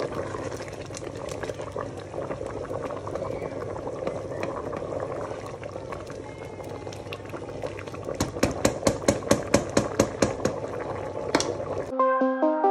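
Sauce bubbling at a simmer in a pot while a metal spoon stirs it. About eight seconds in comes a quick, even run of sharp clicks, about seven a second, for some three seconds. Electronic music cuts in near the end.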